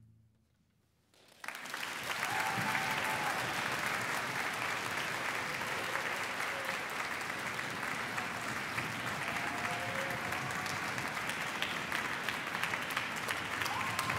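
About a second of silence after an orchestra's final note, then audience applause starts and continues steadily.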